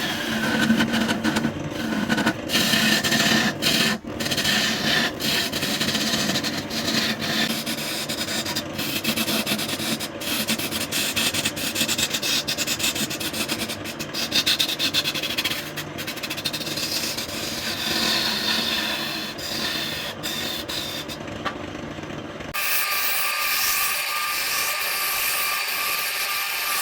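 Wood being worked on a spinning lathe: a steady rasping rub with many scattered ticks. About three-quarters of the way through it changes abruptly to a thinner, higher rasp.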